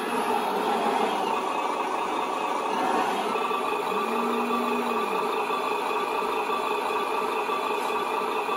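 An HG-P602 RC Cougar MRAP's built-in sound module plays a simulated truck engine running, steady and very loud. About four seconds in, a short whine rises, holds and falls away.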